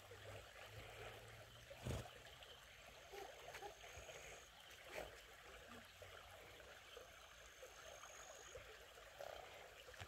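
Faint, steady rush of a flowing stream, with two brief knocks, about two and five seconds in.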